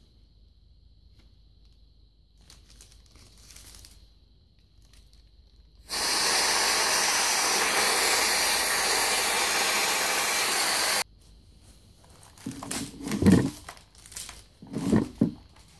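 Compressed air from a blow gun pressed into the end of a PVC conduit, a loud steady hiss that starts abruptly about six seconds in and cuts off sharply about five seconds later. The air is blown through the freshly cemented conduit to help the glue inside cure. Near the end come a few clunks and rustles of handling.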